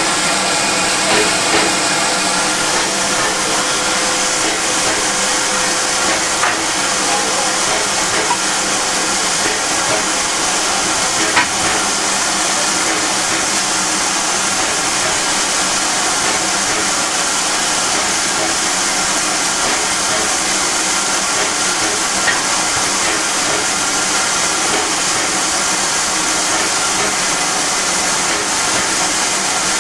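USATC S160 steam locomotive standing at a platform with steam hissing steadily, with one brief knock about eleven seconds in.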